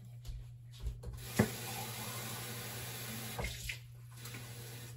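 Kitchen tap turned on about a second in, water running into the emptied soup can to fill it, then shut off near the end. A few knocks of the can against the sink come at the start and end of the running water.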